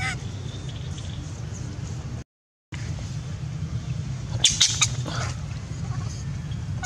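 Baby long-tailed macaque giving short rising squealing cries, one at the very start and one at the end, over a steady low rumble. About four and a half seconds in there is a quick burst of sharp clicks, and the sound drops out for about half a second near two seconds in.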